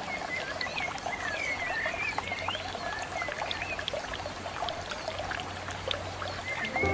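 Small hang-on-back aquarium filter running, its waterfall outflow spilling onto the tank's surface: a steady trickle and splash with quick little gurgles and drips.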